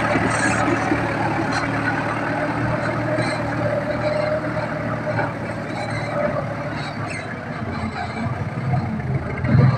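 Engine of a heavy log-hauling machine running steadily, with a faint steady whine and scattered clanks; it gets louder briefly near the end.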